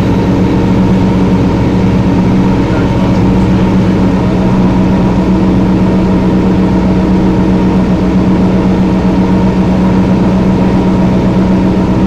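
A 1994 TMC RTS transit bus's Detroit Diesel Series 50 inline-four turbodiesel, running loud at a steady, unchanging pitch.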